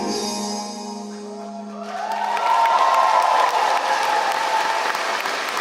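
The last held chord of a live pop song dies away. About two seconds in, the audience breaks into applause and cheering.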